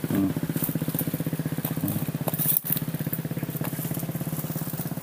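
A small engine running steadily with a rapid, even pulse. Dry leaves crackle over it, loudest a little past halfway, as a baby macaque walks through the leaf litter.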